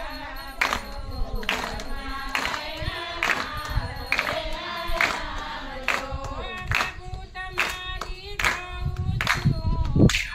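Voices singing a Gujarati Gor Maa devotional song, with a hand clap on the beat a little more than once a second.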